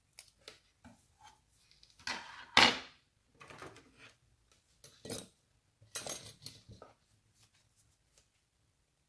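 Metal tweezers and small hand tools clicking and scraping against a phone circuit board, in a series of light clicks and short scrapes, the loudest about two seconds in.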